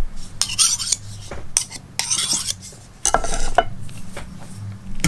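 Cutlery scraping against a plate as a portion of loco moco is cut, in about four short strokes with a few light clicks of metal on the plate.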